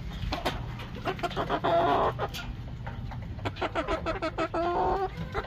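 Gamecock roosters clucking, with a quick run of clicks in the second half as their beaks peck feed out of a plastic bowl.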